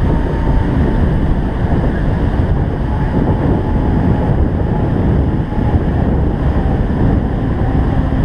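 Steady, loud low rumble of wind buffeting the microphone, mixed with water noise.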